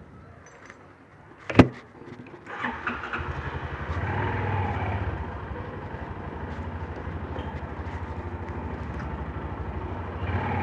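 A sharp click, then a Hero Karizma ZMR's single-cylinder engine starts about two and a half seconds in. It revs briefly and settles into a steady idle.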